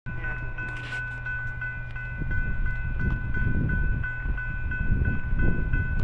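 Railroad grade-crossing warning bell ringing steadily, about three strokes a second, over a low rumble that grows louder about two seconds in.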